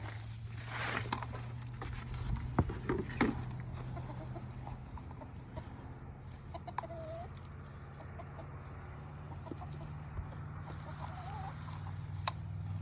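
Chickens clucking, a few short calls scattered through, over a low steady hum, with a handful of sharp knocks in the first few seconds.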